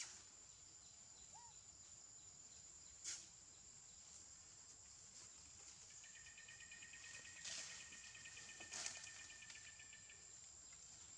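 Faint forest insect sounds: a steady high-pitched insect drone, joined about six seconds in by a second insect's fast pulsing trill that stops near the end. A few soft clicks are heard.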